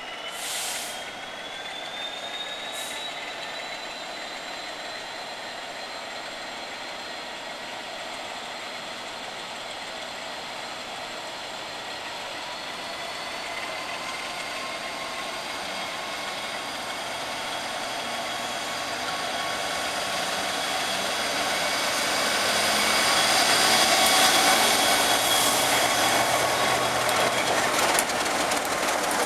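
Diesel locomotive hauling sleeper coaches, approaching slowly and then passing. Its engine sound grows steadily louder with a high steady whine, which rises in pitch over the first few seconds, and is loudest as the locomotive draws level about three-quarters of the way through.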